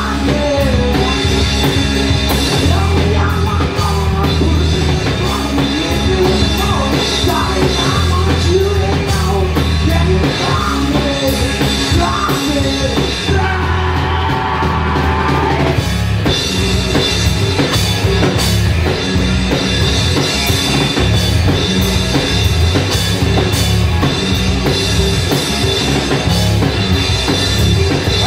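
Live rock band playing loud: electric bass, electric guitar, drum kit and sung vocals. A little past halfway the drums drop out for about two seconds, leaving the guitars ringing, then the full band comes back in.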